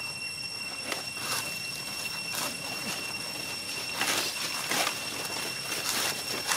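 Steady high-pitched drone of insects, with several short rustling noises.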